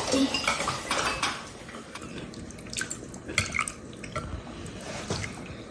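Soup being ladled with a ceramic spoon from a glass serving bowl into a bowl: liquid pouring and dripping, with the spoon clinking against the bowls several times.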